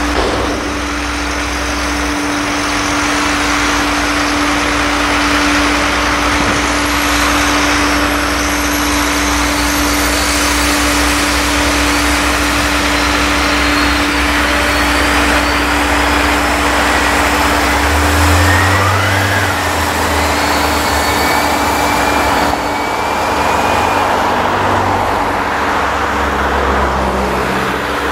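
Several tractor engines running together as tractors tip trailer loads of chopped maize and drive over a silage clamp, under a steady drone. The low engine notes shift as the machines move, and a few faint high whistles rise and fall in the middle.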